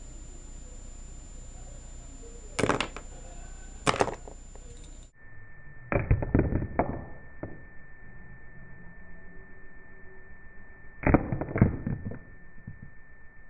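Small plastic toy figures knocking and clattering on a desktop: two sharp knocks, then two short bursts of clatter as one figure is struck and knocked over.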